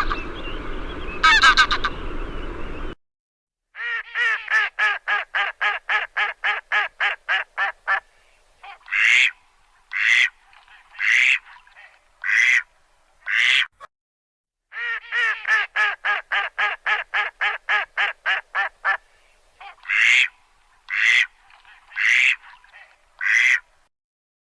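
Duck quacking: a fast run of quacks, about four or five a second, then a few louder quacks spaced about a second apart, the whole pattern heard twice. It opens with a few seconds of a different, noisier sound that cuts off suddenly.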